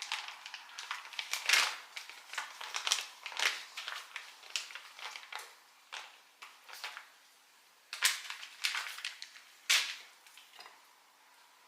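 Irregular crinkling and rustling of a plastic bacon package as thin raw bacon strips are pulled out and handled, with sharper crackles about eight and ten seconds in.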